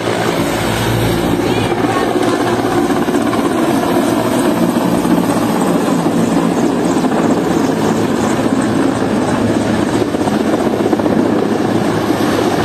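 Mexican Navy helicopter's rotor and engine running loudly and steadily at close range.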